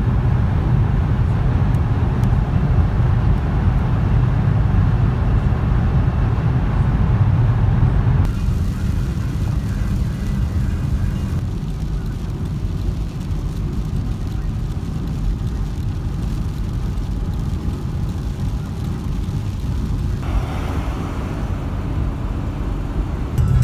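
Car cabin noise while driving at speed: a steady low rumble of engine, tyres and wind. It changes character abruptly about 8, 11 and 20 seconds in as one clip cuts to the next.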